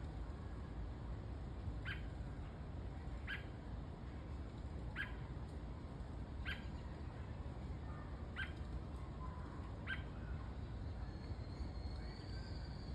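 A small bird chirping: short, sharp single calls repeated about every second and a half, six times, over a low steady background rumble.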